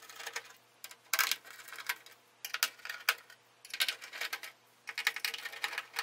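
Screwdriver backing out the small mounting screws of an Oberheim OB-8 voice board: short bursts of light clicking and ticking, about once every second or so.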